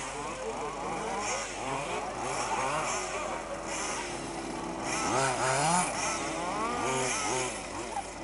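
Several 1/5-scale off-road RC buggies' small two-stroke petrol engines buzzing together, revving up and easing off over and over as they race.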